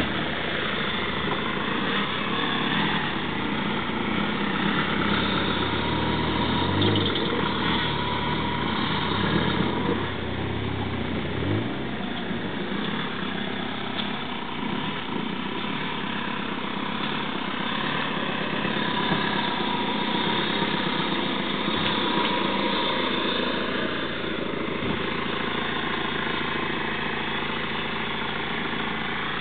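Car engine idling and running at low revs, steady throughout, with its low hum stronger in the first dozen seconds.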